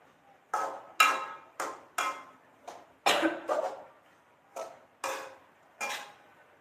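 Metal spatula striking a wok while food is stirred: about ten sharp, ringing clanks at an uneven pace.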